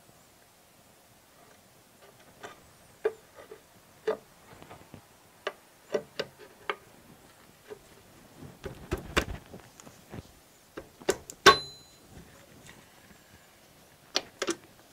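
Colchester lathe threading gearbox cover and its levers knocking and clicking, metal on metal, as the cover is worked by hand onto its alignment pins. Irregular clicks and light clunks throughout, with one sharp, ringing metal clank a little past two-thirds of the way through.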